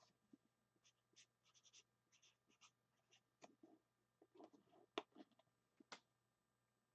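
Near silence with faint, scattered rustling and light ticks of things being handled, and two sharper clicks about five and six seconds in.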